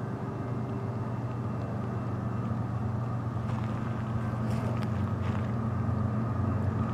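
Steady low diesel engine rumble, slowly growing louder, from an approaching freight train's locomotives. A few faint clicks sound about halfway through.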